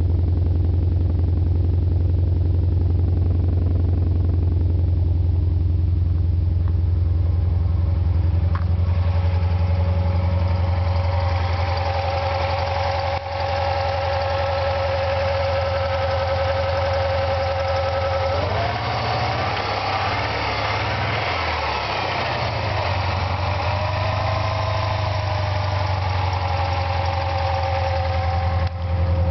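1990 Chrysler Daytona Turbo ES 2.5-litre turbocharged four-cylinder idling. It is first heard as a steady low exhaust note at the tailpipe, then in the engine bay with a steady high tone over the idle. About two-thirds of the way in, the revs rise and fall in a few short blips before it settles back to idle.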